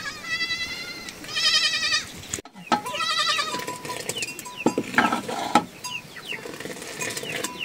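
Goats bleating: three quavering calls in the first three and a half seconds, followed by quieter short, high, falling chirps.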